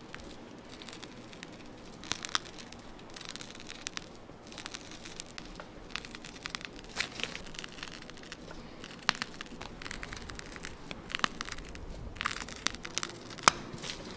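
Clear plastic piping bag crinkling and crackling as it is squeezed to pipe whipped cream petals, an irregular run of small crackles with a few sharper clicks.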